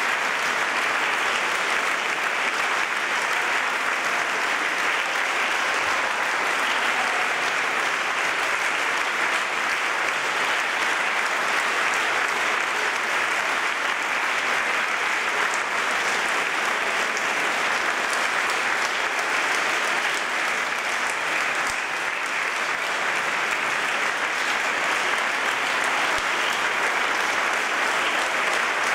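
Large audience applauding steadily, a dense even clatter of many hands clapping that does not rise or fall.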